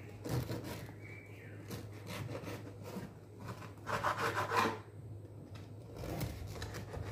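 A knife sawing back and forth through a crusty loaf of buckwheat bread on a wooden cutting board, with rasping strokes that are loudest about four seconds in.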